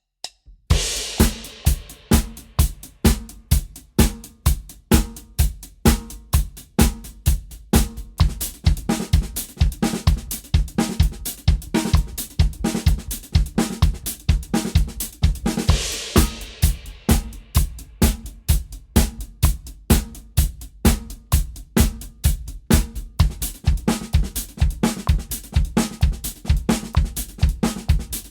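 Drum kit played in a steady groove of paradiddles as sixteenth notes, with bass drum, snare and hi-hat. It starts about a second in with a cymbal crash, and another crash comes about halfway through.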